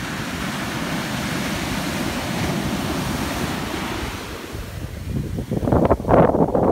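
Ocean surf: small waves breaking and washing up the sand in a steady rush. From about five and a half seconds in, wind buffets the microphone in loud, uneven gusts.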